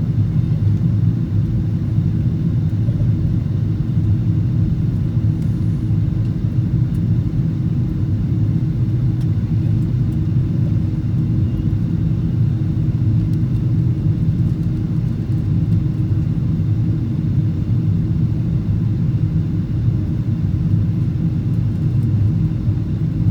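Steady low rumble of an airliner's cabin in flight: jet engine and airflow noise, unchanging throughout.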